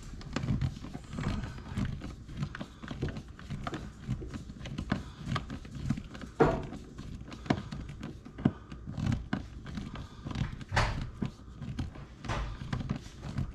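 Irregular clicks, taps and thumps of hand work on an electrical switch box and its wiring, with a sharper knock about six seconds in and another near eleven seconds.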